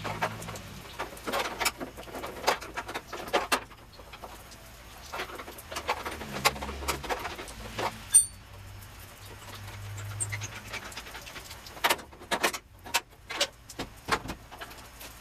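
Metal hand tools and fender hardware clinking and rattling in irregular short clicks as bolts are worked loose, with one sharp ringing metallic ping about eight seconds in.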